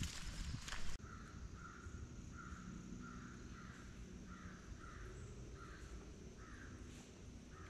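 A louder hiss cuts off abruptly about a second in. Then a bird calls over and over, faintly, a short scratchy call about twice a second.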